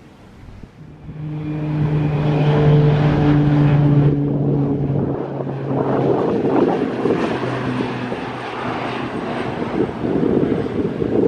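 Aircraft engine noise that comes in about a second in and stays loud: a steady low hum under a broad rush.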